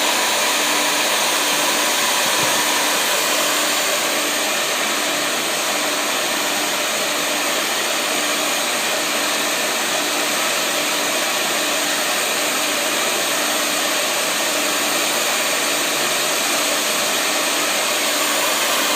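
Steady rushing air from a motor-driven dryer vent cleaning machine, running without a break, with a faint low pulse about three times every two seconds.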